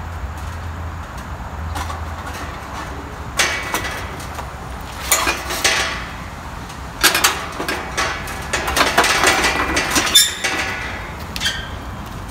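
The wire protective grill of a kerosene heater clinking and rattling against the heater's metal cabinet as it is lowered and fitted into place, in irregular bursts of metallic clatter.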